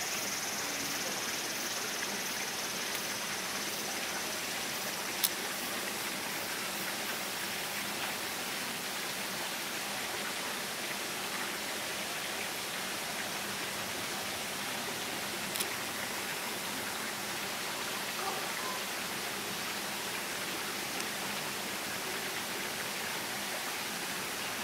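Steady rushing noise of running water, with a sharp click about five seconds in and a smaller one past fifteen seconds.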